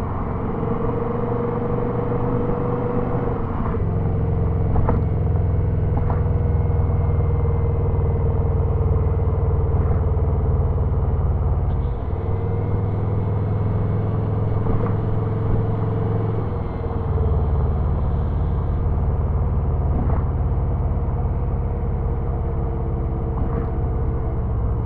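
Turbocharged Subaru engine running under way, a steady drone with a held tone that drifts, dips and changes character a few times as the throttle is worked, around 4, 12 and 17 seconds in. A faint high whine from the turbo sits over it through the middle stretch, with a few faint ticks.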